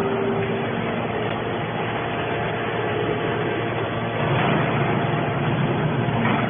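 Hydraulic scrap metal baler running, a steady machine drone from its motor and hydraulic pump. A steady whine fades out in the first second, and the sound swells slightly about four seconds in.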